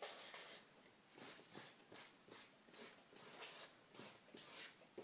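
Faint, irregular swishes of a felt-tip marker stroking across paper, one short stroke after another as letters are written.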